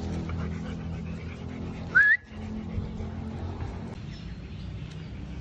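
A single short, high chirp rising in pitch, like a whistle, about two seconds in, over a steady low hum.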